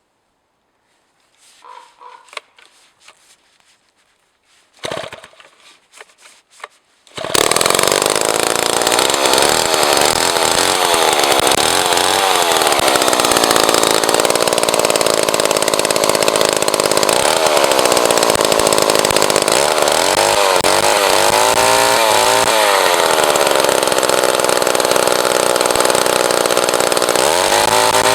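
Old 93 cc Jobu Tiger chainsaw restarted on a few drops of fuel dripped into it. A few faint sounds and a sharp rasp come first, then the engine catches about seven seconds in and runs loudly, its revs rising and falling several times as the throttle is worked.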